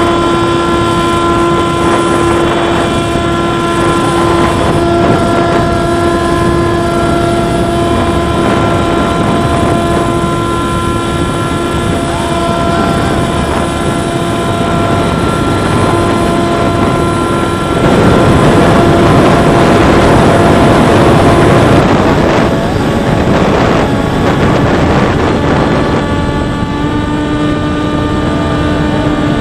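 Volantex Ranger 757-3's 3715 outrunner brushless motor and 1060 propeller running steadily in climbing flight, heard from a camera on the plane: a steady motor whine over rushing wind. The wind noise grows louder for a few seconds about eighteen seconds in, and the whine settles a little lower near the end.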